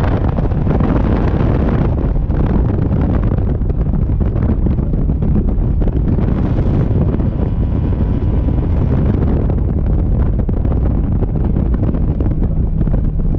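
Strong wind buffeting the microphone of a bass boat running at speed across a choppy lake, with the boat's outboard motor under it. A steady, loud, low rumble with no pauses.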